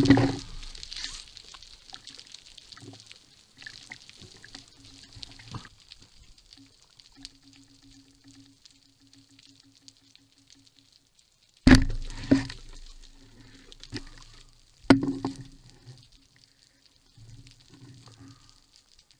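Underwater sound picked up by a diver's camera: a faint steady crackling with a low hum that pulses at times, broken by sudden loud noises at the start and about 12 and 15 seconds in.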